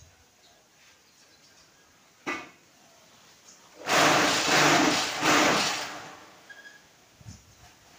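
Steel lever mechanism of a manual concrete block press: a single knock about two seconds in, then a loud metallic scraping and clanking in two surges lasting about two seconds as the long handle is swung up.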